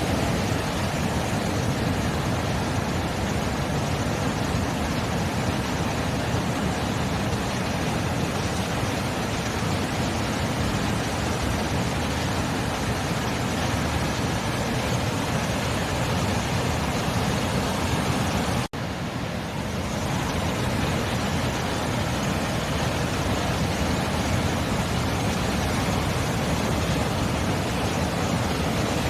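Sea surf: a steady, unbroken wash of breaking waves, with a momentary dropout about 19 seconds in.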